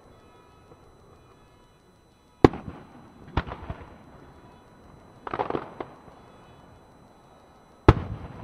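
Aerial firework shells bursting: a sharp bang about two and a half seconds in, another a second later followed by crackling, a cluster of crackles around five seconds in, and a loud bang near the end.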